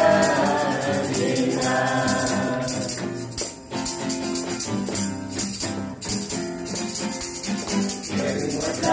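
Instrumental interlude of a Christian worship song: backing instruments with a steady percussion beat between sung lines.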